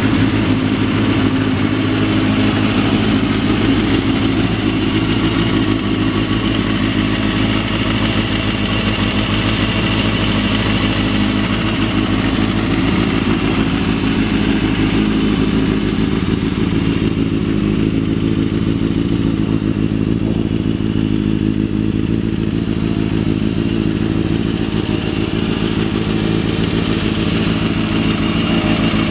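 2003 Kawasaki ZX-6R's inline-four engine running steadily at idle through an aftermarket exhaust.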